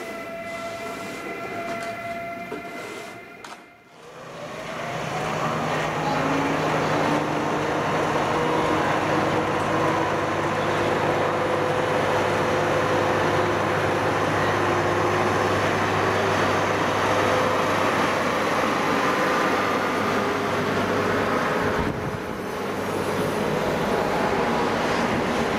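ZSSK class 350 electric locomotive hauling a train of passenger coaches past, its whine gliding upward as it gathers speed over a steady hum, with the coaches rolling by. During the first few seconds, before a cut, a steady electric whine comes from a different electric train at the platform.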